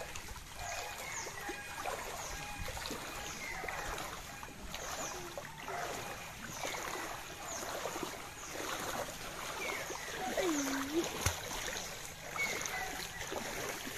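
Floodwater sloshing and splashing in uneven strokes, with short high chirps recurring over it.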